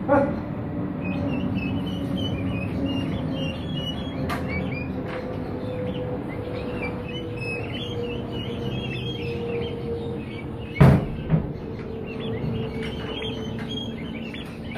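Two-week-old turkey poults peeping, many short high chirps overlapping without pause, over a steady low hum. Two sharp thumps stand out about eleven seconds in.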